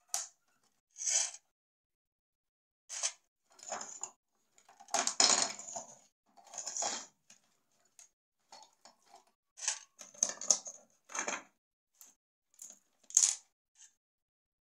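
Rustling and light clinking of small parts as a handful of removed transistors is handled in a crinkly packet: irregular short bursts, with a longer rustle about five to seven seconds in.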